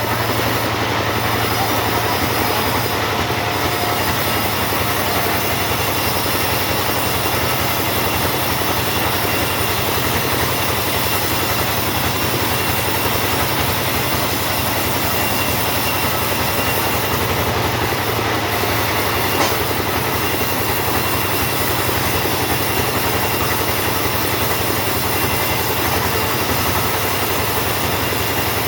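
Chainsaw running steadily while sawing teak wood, a continuous engine drone with cutting noise and no breaks.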